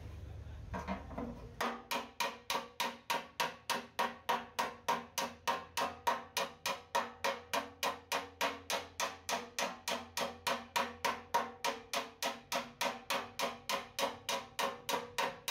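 Rapid, evenly spaced hammer blows on ringing metal, about three and a half a second. They start about a second and a half in and stop abruptly.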